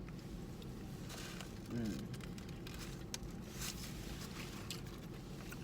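Low room background with a brief faint vocal sound, falling in pitch, about two seconds in, and a few soft ticks and rustles.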